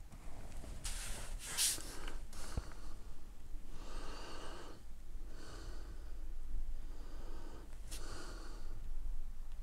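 A person breathing audibly close to the microphone: a series of soft breaths in and out, about five in all.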